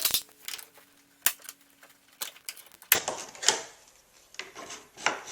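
Sharp clicks and knocks as a locking pin is worked into a hinge of an Origami Paddler folding kayak, a few single clicks first, then a busier run of knocking and rubbing from about three seconds in.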